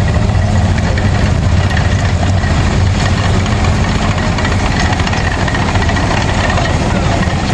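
Tracked armored SWAT vehicle's engine running steadily and loud, a low drone with a faint high steady tone over it.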